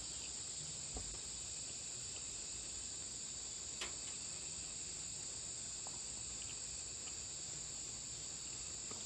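Crickets chirping in a steady, high-pitched night chorus, with a couple of faint clicks of a fork on a plate.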